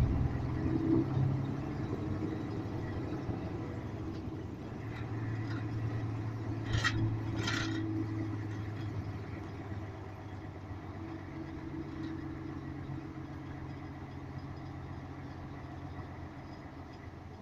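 Lorry engine drone heard inside the cab while driving slowly, a steady low hum that eases off in the second half. Two short sharp sounds come about seven seconds in.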